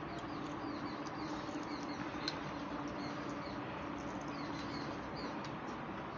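Two people eating rice and curry, one by hand and one with a spoon: faint mouth sounds and small spoon clicks over a steady background hiss, with several faint, short, high chirps.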